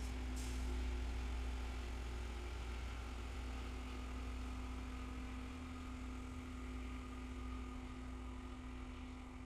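Loram rail grinding train passing, its diesel engines running as a low rumble with a steady hum, slowly fading. A brief hiss comes just after the start.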